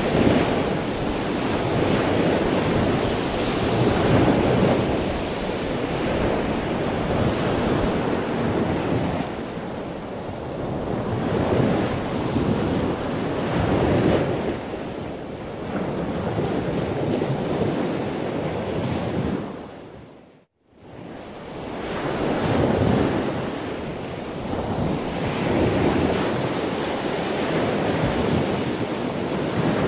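Wind buffeting the microphone over the wash of the sea, in uneven swelling gusts. Partway through it dips briefly to silence and then comes back.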